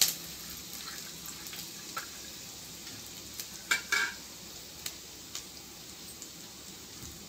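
Chopped onions frying in melted ghee in a kadai, with a steady sizzle. A spatula clicks against the pan several times, loudest twice a little under four seconds in.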